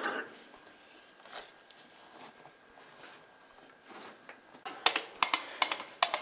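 Faint rustling, then from about four and a half seconds in a fast, uneven run of sharp clicks or taps.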